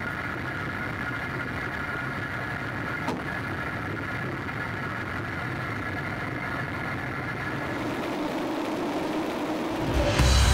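Steady drone of an AC-130 gunship's turboprop engines heard from inside the cabin, with one sharp click about three seconds in. Music comes in near the end.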